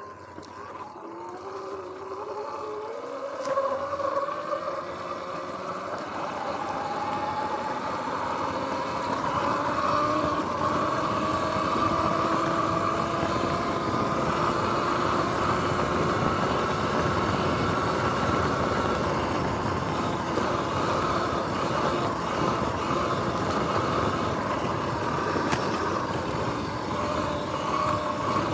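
Sur-Ron X electric dirt bike's motor and drivetrain whining as it accelerates, the whine rising in pitch over the first few seconds, then holding fairly steady over a constant rush of tyre and wind noise.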